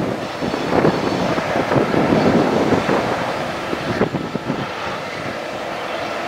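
Wind buffeting the microphone in uneven gusts. A steady distant engine hum comes in about two-thirds of the way through.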